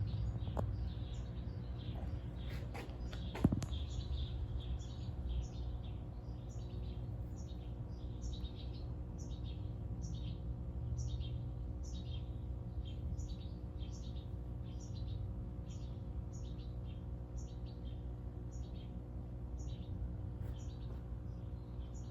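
A small bird chirping over and over, about two short high chirps a second, over a steady low hum. One sharp knock about three and a half seconds in.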